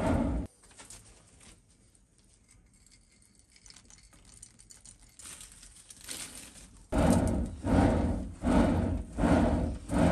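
Hand-pumped clay bellows blowing air into a charcoal forge in rhythmic strokes. The pumping stops within the first half-second. Faint rustling of charcoal being added follows, and the strokes start again about seven seconds in at roughly three strokes every two seconds.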